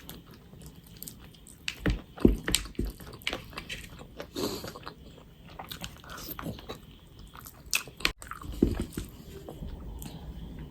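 Close-miked eating sounds: a person biting and chewing food, with irregular crunchy clicks and mouth noises.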